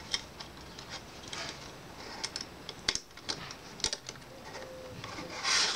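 Scattered small clicks and taps as a BBC micro:bit circuit board is handled and fitted into the pieces of a plastic protective case, with a short hiss near the end.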